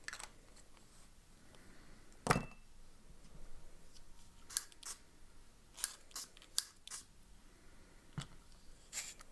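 Small handling sounds of pens and desk items being picked up and set down: one louder knock about two seconds in, then a string of sharp clicks and ticks.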